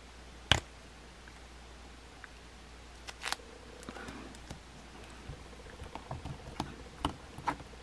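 A plastic action figure handled and posed, its joints moved by hand: one sharp click about half a second in, then scattered softer clicks and handling rustle.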